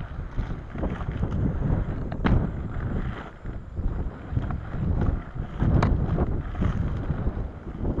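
Off-road inline skates with large 125 mm 83A wheels rolling over a dirt road: a rough, low rumble that swells and dips with the strides, with wind buffeting the microphone. A couple of sharp clicks stand out, one about two seconds in and one near six seconds.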